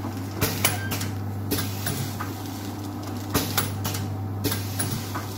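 Vertical form-fill-seal tea pouch packing machine running: a steady hum under sharp mechanical clacks, single or in pairs, about once a second, as the jaws seal and cut each pouch.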